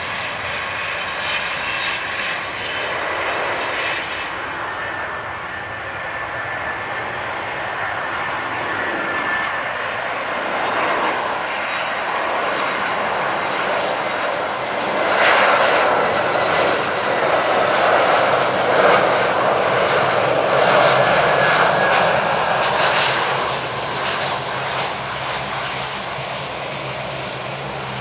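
Airbus A320 airliner's jet engines on approach to landing: a steady rushing noise with a thin whine. It grows louder as the aircraft comes closer, is loudest about halfway through as it passes, then eases off.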